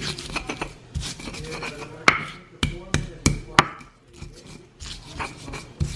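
Stone pestle pounding and crushing garlic cloves and candlenuts with spices in a flat stone mortar: crunching and grinding as the cloves break, with a run of sharp knocks about two to four seconds in.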